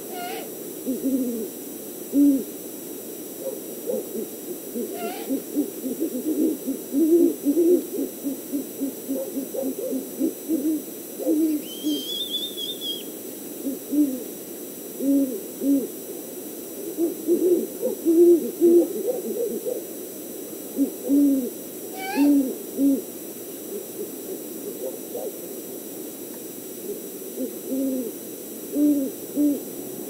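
A pair of great horned owls hooting back and forth in a courtship duet, one voice deeper than the other, with many hoots in quick series. About twelve seconds in, a single high whistle sounds over the hooting.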